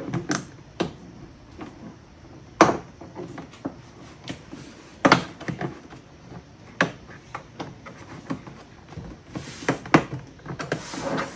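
Irregular sharp knocks and clicks from a plastic interior trim panel on a Toyota RAV4's rear hatch being pressed and tapped into place.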